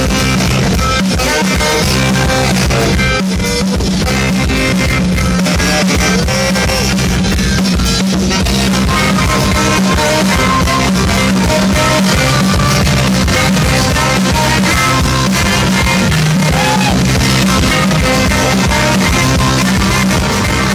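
Live rock band playing, with a tenor saxophone carrying the melody over electric bass, guitar and drum kit.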